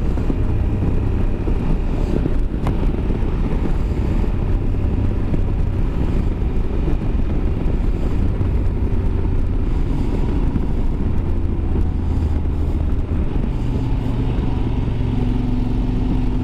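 Yamaha Super Ténéré's parallel-twin engine running at a steady cruising speed, under steady wind and road noise. The engine note settles slightly higher about three-quarters of the way through.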